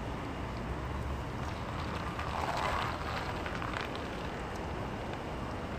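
Steady outdoor background noise with a low rumble that fades about a second in. In the middle there are faint cries from the stray cat colony.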